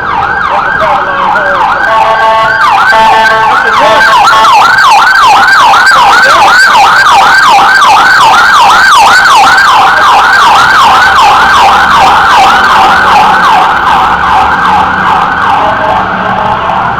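Emergency vehicle siren sounding loud and close in a fast yelp, its pitch sweeping up and down about three times a second, with a brief change of pattern about two to three seconds in.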